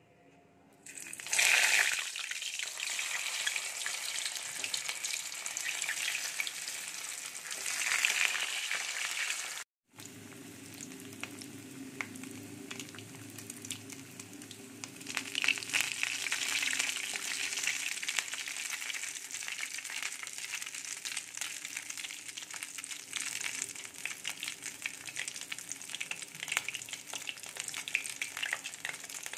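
Batter-coated stuffed pointed gourds (potol) sizzling in hot oil in a wok. A sudden loud burst of sizzling comes about a second in as they go into the oil, with another surge near eight seconds, and after a brief cut the oil settles into steady crackling frying.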